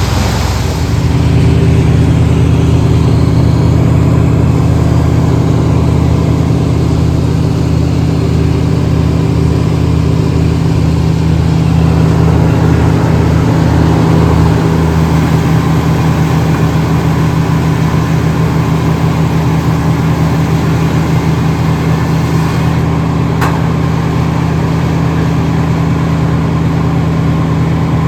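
An engine running steadily at a constant speed, stepping up in level about a second in and then holding even.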